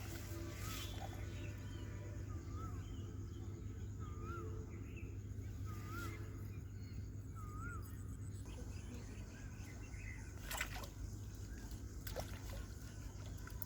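A bird repeating a short rising-and-falling call about every second and a half, five times over the first half, over a steady low rumble. Two sharp clicks come in the second half.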